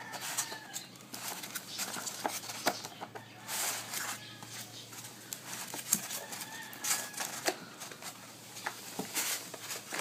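Packaging being handled during an unboxing: irregular rustles, clicks and taps as the alarm kit and its box are moved about. A chicken calls briefly in the background near the start and again about seven seconds in.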